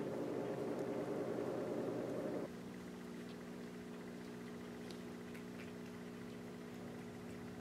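A kitten purring close to the microphone, a dense rumble that cuts off abruptly about two and a half seconds in. A quieter steady hum and a few faint clicks follow.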